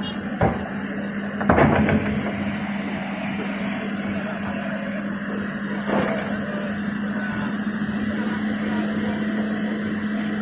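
Heavy-equipment diesel engine running steadily, with a few sudden clanks: a light one about half a second in, the loudest about a second and a half in, and another near six seconds.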